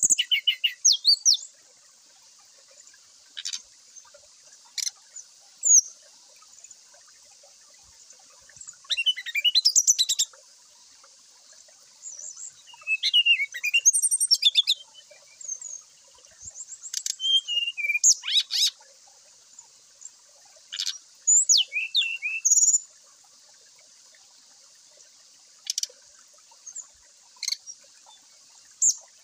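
Sikatan rimba dada coklat (a jungle flycatcher, 'SRDC') singing in bursts: rapid chattering trills and gliding whistled phrases, with single sharp chips in between.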